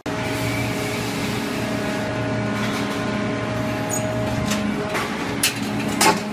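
Steady hum of factory machinery around a large metal-forming press for drawing steel gas-cylinder halves, with a few sharp metal knocks about five to six seconds in.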